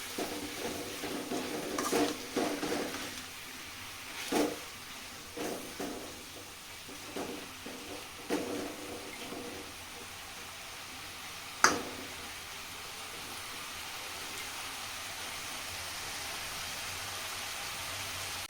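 A spoon scrapes and knocks now and then against a pan while tomato chutney is stirred, over a steady frying sizzle. A sharp tap comes about two-thirds of the way through, and after it only the even sizzle is left.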